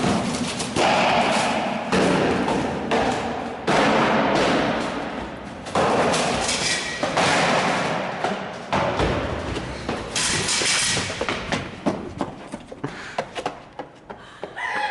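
Loud music with heavy thuds, in blocks that start abruptly every second or two.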